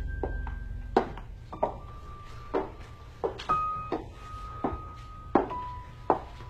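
Sparse, suspenseful background score: irregular struck notes, each followed by a thin high note held until the next one, the pitch stepping down over the passage.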